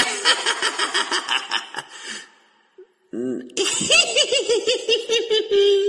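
A villain's exaggerated evil laugh, sounding like a little kid, in two bursts: rapid even pulses first, a short pause about two and a half seconds in, then a second burst that ends on a long held note.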